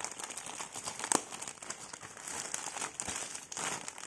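Parcel packaging crinkling and rustling as it is handled and opened, with a sharper crackle about a second in.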